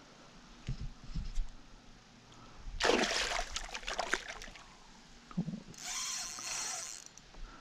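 A hooked northern pike thrashing at the surface beside a kayak. A loud splash of water comes about three seconds in, lasting just over a second, with more splashing about six seconds in. A few dull knocks come a second in.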